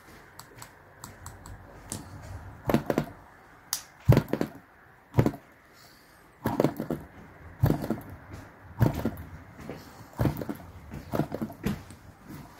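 Light, uneven clicks and taps, about one or two a second and often in pairs, from a small brass model hit-and-miss engine as its intake valve is pushed open and released by hand. The valve is being worked free, since dried oil can make it stick and stop the engine running.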